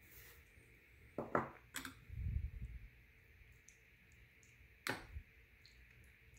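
Metal spoon stirring thick chicken rice porridge in a bowl, clinking against the bowl a few times, with a soft low thump about two seconds in.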